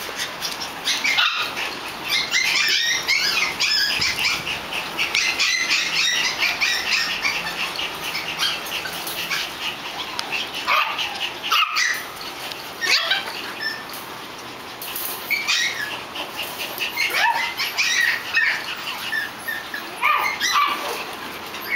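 Several small poodles barking and yapping over one another, a dense run of short, high-pitched barks with a brief lull about two-thirds of the way through.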